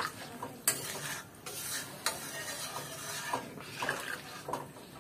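Metal spatula stirring a watery egg and cauliflower curry in a metal kadhai, scraping along the pan and knocking against its side several times.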